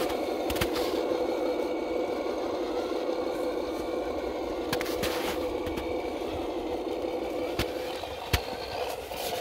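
Cross RC 6x6 scale truck's electric motor and gear drivetrain running steadily as it drives through snow, a continuous hum. A few sharp clicks from the chassis come through, a cluster around the middle and two more near the end.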